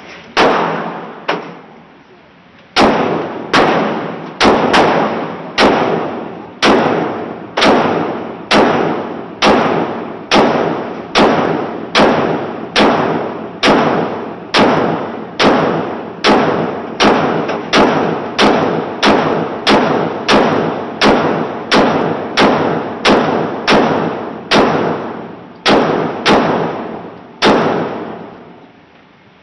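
Glock 23 pistol in .40 S&W fired about thirty times at a steady pace of roughly one shot a second. Each shot is followed by a long echoing decay. There are two shots near the start, then a short pause, then the steady string, which stops about two seconds before the end.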